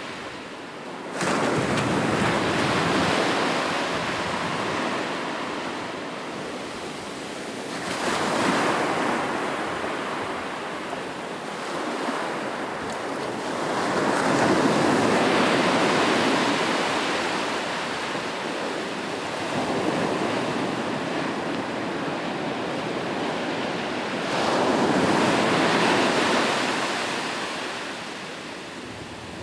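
Sea waves breaking and washing up the shore, the surf swelling and falling back about five times, the first break coming in suddenly about a second in.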